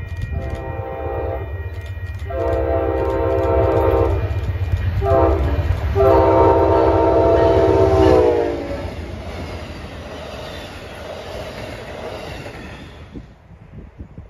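A diesel passenger locomotive's multi-tone air horn sounds long, long, short, long, the standard grade-crossing signal, over the low rumble of the engine. The pitch of the last blast drops as the locomotive passes. Afterwards the wheel and rail noise of the passing train fades.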